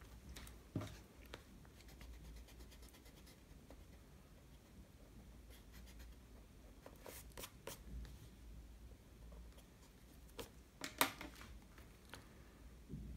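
Mechanical pencil scratching short, faint strokes on sketchbook paper, with a pen-style eraser rubbing partway through. A couple of sharper taps or clicks come near the end, the loudest about two seconds before the close.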